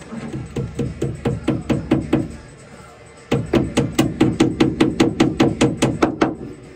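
Rapid, even hammer blows on wood, about four to five a second. One run lasts about two seconds, then after a short pause a second, louder run lasts about three seconds.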